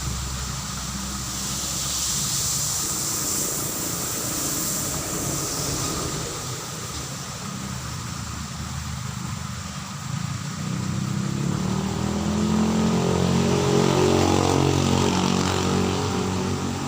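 A motor vehicle passing on the road: its engine is heard approaching, is loudest a little before the end, and then begins to fade, over a steady outdoor hiss.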